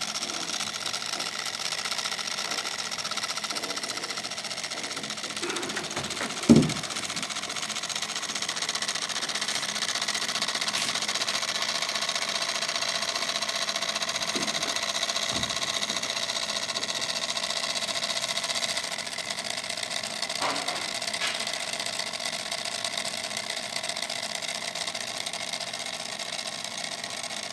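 Small DC hobby motor running steadily, driving a toy car's axle through a 3-to-1 reduction, with a continuous mechanical whine. A single sharp thump about six seconds in, and a few lighter knocks later.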